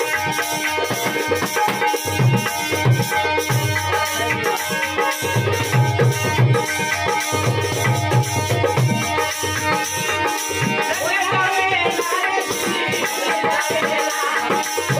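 Marwari folk music played live on harmonium, dholak and a jingle tambourine, with the harmonium's held chords under steady tambourine jingles and the dholak's deep hand strokes. About eleven seconds in, a man's voice starts singing and the drum drops back.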